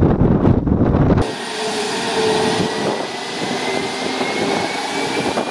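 Airbus A320neo jet engines: for about the first second a heavy rumbling buffet of jet blast on the microphone, then a sudden change to the engines' steady hiss with a thin whine that slowly rises in pitch.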